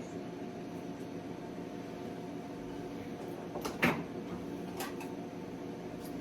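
Steady mechanical hum with a short cluster of clicks or knocks a little past halfway and one more click about a second later, like small objects being handled or set down.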